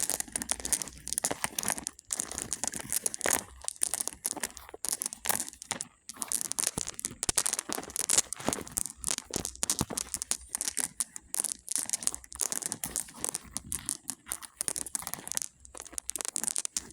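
Small pebbles clattering and crunching against one another as they are handled: a dense, continuous run of quick sharp clicks, with brief lulls about two and six seconds in.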